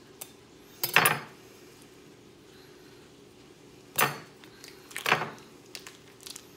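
A knife and the plastic wrapper of a chub of ground beef being handled as it is cut open and unwrapped: three short, sharp crackling knocks, about a second in, at about four seconds and just after five seconds.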